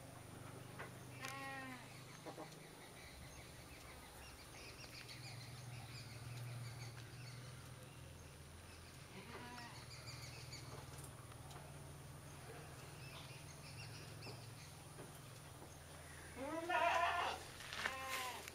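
Quavering, bleat-like farm animal calls: one about a second in, one near the middle, and a louder pair near the end. Faint high chirps sound in between, over a steady low hum.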